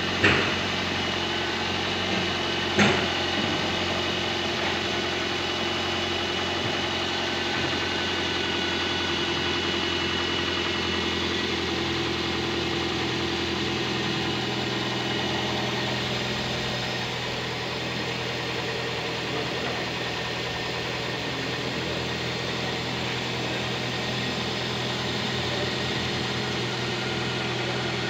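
Toyota four-cylinder VVT-i petrol engine idling steadily after being jump-started from a separate battery through jumper cables. There are two sharp clicks in the first three seconds.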